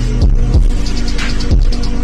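Electronic music with a steady drum beat over held synth tones.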